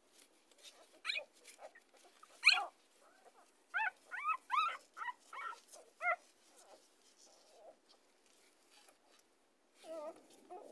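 Newborn puppies squeaking and whimpering while they nurse: a string of short, high cries, each rising and then falling in pitch. The loudest comes about two and a half seconds in, most are bunched between about four and six seconds, and a lower cry follows near the end.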